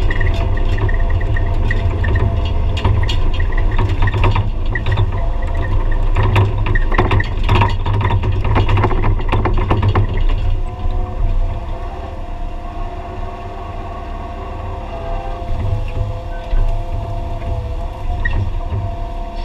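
Excavator's diesel engine running under load with a steady hydraulic whine, heard from inside the cab. For the first ten seconds a clatter of knocks and cracks comes from the grab working in hedge branches; after that the machine runs quieter and steadier.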